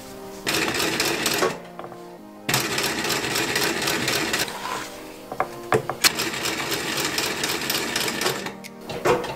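Industrial sewing machine stitching through leather, running in several runs of a few seconds with short stops between them.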